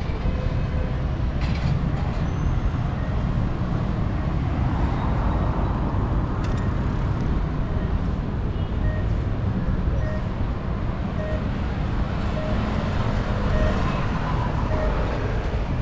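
Steady city road traffic noise from cars and a bus on a wide junction, a continuous even rumble. A faint short beep repeats about every two-thirds of a second through much of it.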